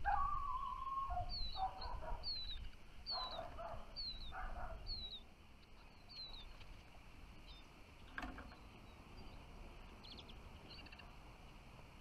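A small songbird calling with a short, high, falling note, repeated about seven times at a steady pace, with lower whistled notes in the first few seconds and a low rumble underneath.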